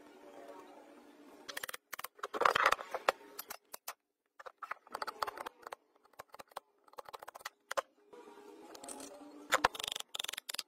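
Metal hand tools working on rusty metal parts: a screwdriver and pliers scraping, prying and clinking, heard as a series of sharp clicks and short scrapes with brief pauses between. The busiest clusters come about two seconds in and again near the end.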